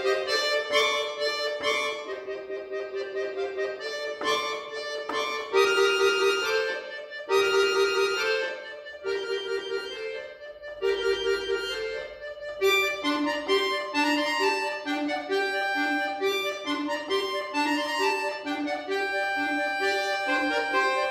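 Solo chromatic button accordion playing classical concert music: sustained chords and moving melodic lines, softer for a moment about halfway, then a steady repeated-note figure in the lower notes under held melody notes.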